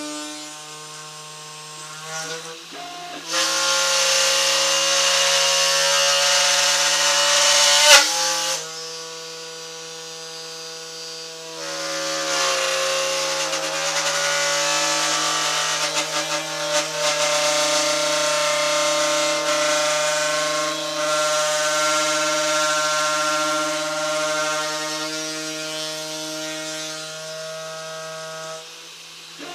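Machine tool drilling holes in a wooden table top: a steady spindle whine with two longer spells of the bit boring into the wood, the first ending with a sharp click about eight seconds in, the second running from about twelve seconds until shortly before the end.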